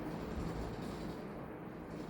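Ceiling fan running, a steady even hum and rush of moving air.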